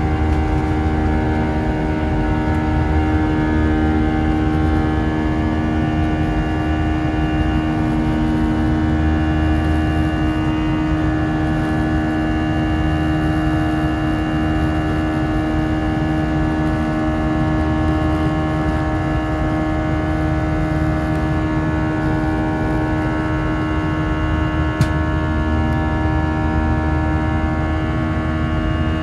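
Airbus A319's CFM56 turbofan heard from inside the cabin at climb power: a steady drone layered with a stack of steady buzzsaw tones from the fan. One brief click near the end.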